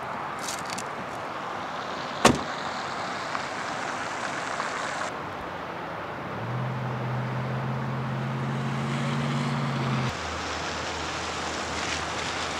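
A car door slams shut about two seconds in. A few seconds later a car engine's steady low hum sets in, then drops to a lower drone near the end.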